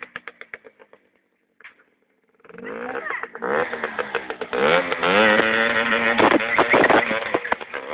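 Small motorcycle engine revving, its pitch rising and falling, with the bike held up on its rear wheel and the front wheel in the air. The sound drops to near silence about a second in, and the engine comes back in at about two and a half seconds.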